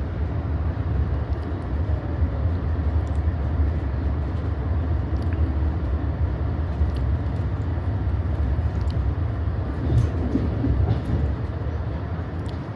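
Amtrak passenger coach in motion, heard from inside the car: a steady low rumble of wheels on rail with faint scattered clicks and rattles.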